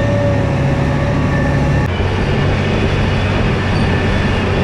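John Deere 8235R tractor's diesel engine running steadily under load, a constant drone heard from inside the cab while it pulls a loaded grain cart.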